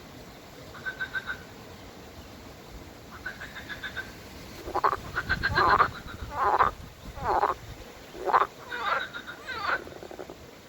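Frogs croaking: short calls of a few rapid pulses, then from about five seconds in a run of about six louder, longer croaks that slide up and down in pitch.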